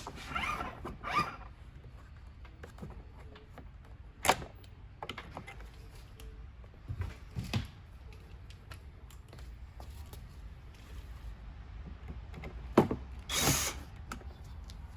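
Scattered clicks and knocks of quad bike parts and hand tools being handled during assembly, with a short scraping or whirring burst near the end.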